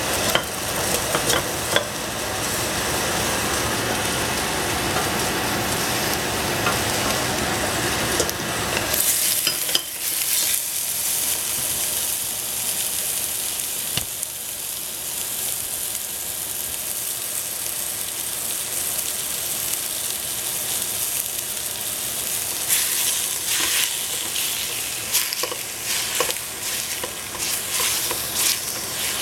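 Ground pork and onion sizzling as they fry in a stainless steel pot, with a steady hiss throughout. A wooden spatula stirs and scrapes the meat, giving short scraping strokes that come thicker near the end.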